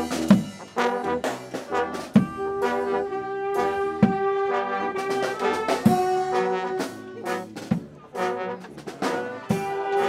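Brass street band playing live: saxophones, trombones and trumpets over drum hits, with a long held horn note in the middle.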